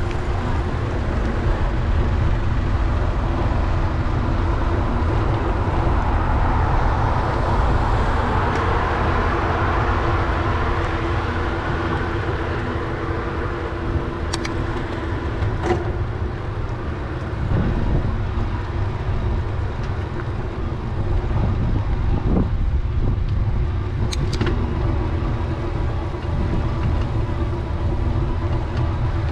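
Steady rumble of wind and road noise on a bicycle-mounted camera riding along a city road, with car traffic swelling and fading about a third of the way in. A few brief ticks and clicks toward the end.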